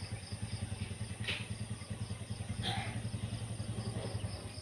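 A small engine running steadily at idle with a rapid low pulsing beat, fading out near the end, over faint, regular high-pitched cricket chirping.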